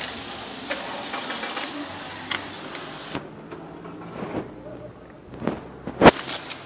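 Scattered light clicks and knocks from handling at a car's open door frame, with one sharp, loud knock about six seconds in.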